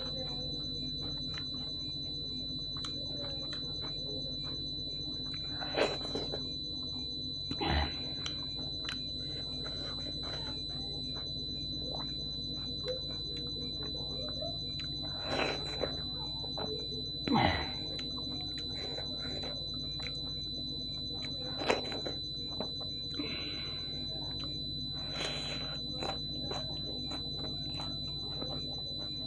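Close-up eating sounds of dhido and chicken curry eaten by hand: soft chewing clicks and mouth noises, with about six louder smacks spread through. A constant high-pitched whine sits under them.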